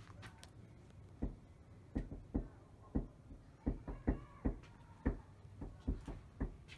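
Knocking on a door: a string of about a dozen uneven knocks starting about a second in.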